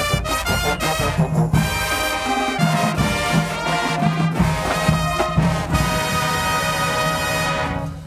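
High school marching band playing a loud brass passage over drums, with trumpets and trombones on top, that settles into a long held chord about six seconds in and cuts off sharply near the end.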